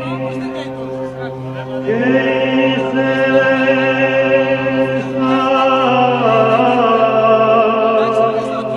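Slow chant singing: long held notes that change pitch every second or two, over a steady low drone.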